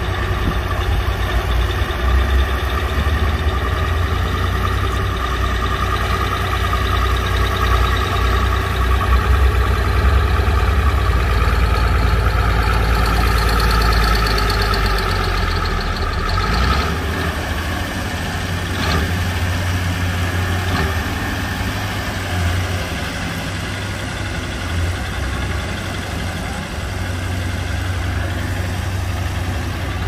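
Komatsu crawler bulldozer's diesel engine running steadily, with a steady whine over the engine note. The deep low rumble drops away a little past halfway.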